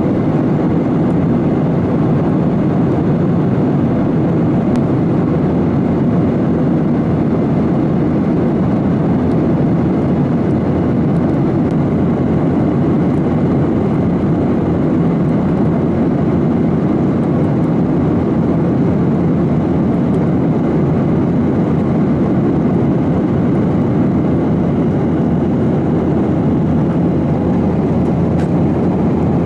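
Steady cabin noise of a jet airliner in cruise: the even rush of engines and airflow heard from inside the cabin.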